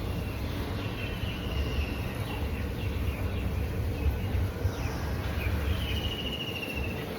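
Outdoor background noise: a steady low rumble with high, fast-pulsed trills over it, the clearest near the end.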